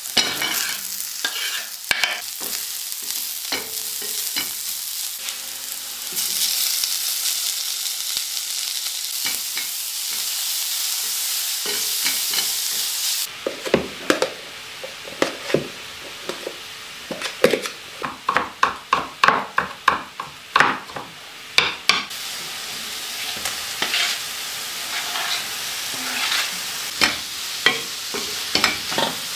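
Food sizzling in a stainless steel frying pan as a wooden spoon stirs it, with scraping clicks of the spoon against the pan. In the middle, a quick run of scrapes and taps as a spoon works inside a plastic tub, before the sizzling and stirring return.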